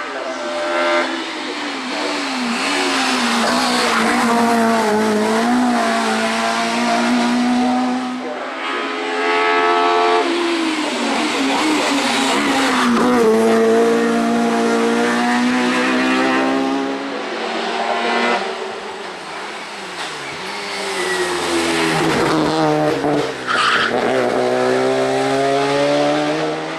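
Hill-climb race car engines at full throttle, the pitch climbing through each gear and dropping at every shift, with a short tyre squeal about three-quarters of the way through.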